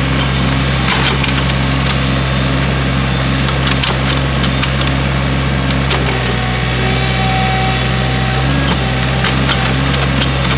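Excavator engine running steadily under load, with scattered sharp cracks and snaps of woody brush and branches breaking as the rose bushes are pushed and handled.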